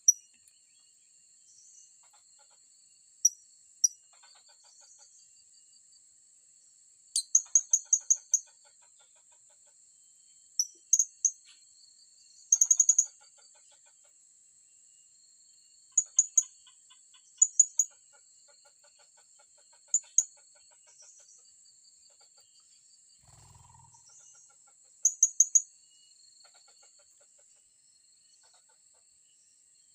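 Blue-crowned hanging parrots (serindit) giving sharp, very high-pitched chirps in quick runs of up to six notes, repeated every few seconds, over a steady high insect buzz.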